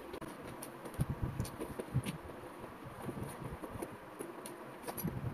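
Soft, irregular eating sounds: a fried bread pakora being broken apart by hand over a plate, with small crunches, light taps and quiet chewing.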